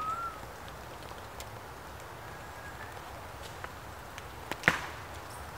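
Hands working a disposable lighter at a small pile of tinder: quiet steady background hiss with a few faint ticks and one sharp click about four and a half seconds in.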